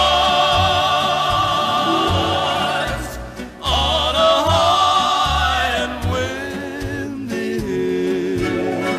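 Orchestral music carrying a melody with strong vibrato. It dips briefly about three seconds in, and the melody drops to a lower register about six seconds in.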